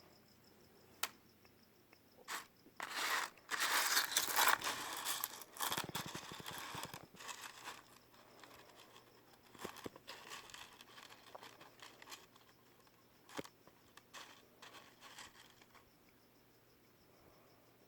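Handling noise: rustling and crinkling, as of paper or plastic being handled, loudest a few seconds in, followed by scattered sharp clicks. Faint crickets chirp underneath.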